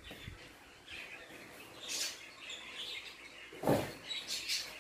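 Faint bird chirps in the background, with a single short knock about three and a half seconds in.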